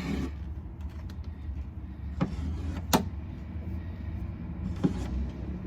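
Three short, sharp clicks as the oil extraction pump's hose fitting is unscrewed and handled, over a steady low rumble.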